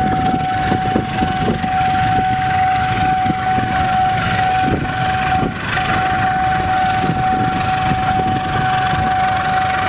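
Running noise of a moving train heard from aboard: a steady rumble with irregular wheel knocks and clatter on the track. A steady whine at one fixed pitch runs underneath and drops out briefly a little past halfway.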